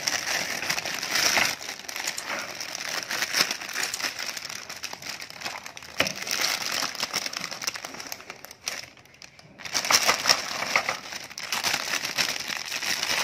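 Clear plastic bag wrapped around a toy crane truck crinkling and crackling as it is handled and turned over, with a short lull about two-thirds of the way through.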